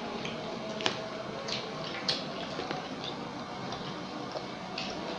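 A child eating rice and fried fritters by hand: a few light clicks and smacks from eating, spaced irregularly, over a steady faint background hum.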